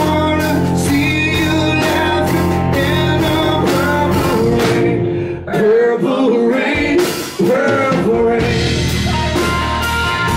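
Live rock band playing: electric guitar, bass and drums, with a voice singing. The bass and drums drop out briefly about halfway through, leaving bending guitar or vocal lines, then the full band comes back in.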